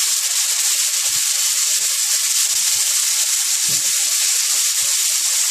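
Minced beef and pork with chopped onions sizzling steadily in a hot non-stick frying pan, a splash of red wine just added, while a wooden spatula stirs through it with scattered soft knocks and scrapes against the pan.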